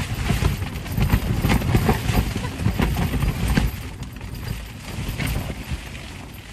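Aluminium foil food tray being lifted and handled on a table: irregular knocks and thumps with crinkling, heaviest in the first few seconds, then settling.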